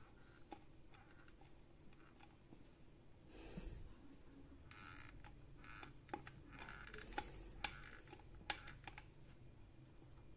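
Faint handling sounds of a hot glue gun in use: scattered small clicks of its trigger and brief rustles as it is worked by hand, with a few sharper ticks near the end.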